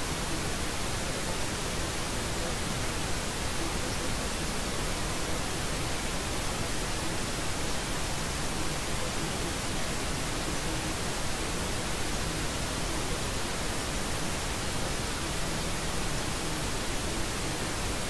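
Steady white noise: an even, unbroken hiss across all pitches that does not change.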